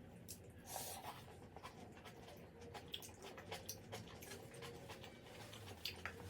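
Quiet mukbang eating sounds: scattered light clicks and taps, as of utensils against a dish, mixed with soft chewing, with a brief rustling swell about a second in.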